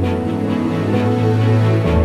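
Background music with sustained notes over a deep bass line that changes note near the end, and a soft, regular beat.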